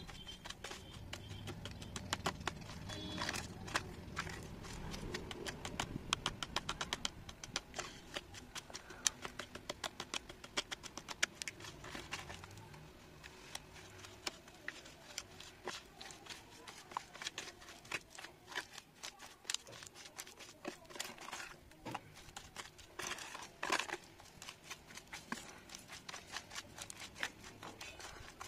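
A metal spoon stirring and mashing thick wet clay paste in a plastic tray, making wet stirring sounds with many quick clicks and taps of the spoon.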